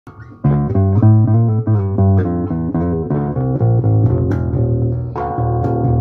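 1966 Baldwin semi-hollow electric bass guitar being played: a quick, busy run of plucked notes starting about half a second in.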